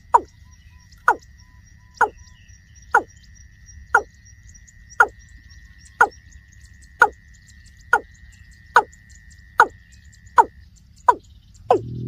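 Water cock calling: a steady, regular series of short notes, about one a second, each dropping sharply in pitch.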